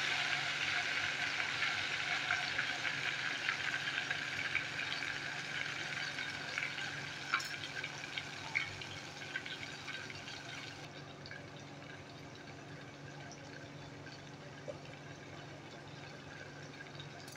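Ghevar batter deep-frying in hot oil in a deep pot, a dense crackling sizzle full of tiny pops. The sizzle dies down steadily over the first dozen seconds as the frothing settles, then carries on faintly.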